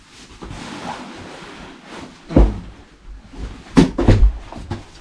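A rolled self-inflating camping mattress being handled and unrolled: rustling, then a few dull thumps from about two and a half seconds in.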